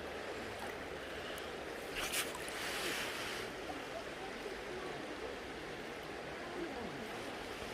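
River water rushing steadily, with a brief louder hiss about two seconds in.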